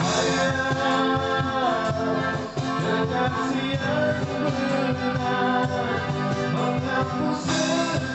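Live busking band playing a Malay song: guitar accompaniment with a singer's voice, holding and sliding notes between lines.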